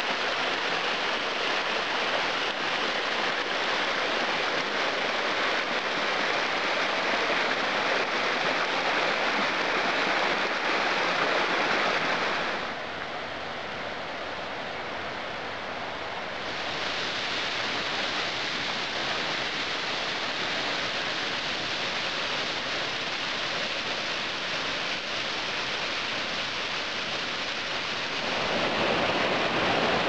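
Steady rush of water from a small mountain waterfall and rocky stream. It turns quieter and duller for a few seconds near the middle, then comes back.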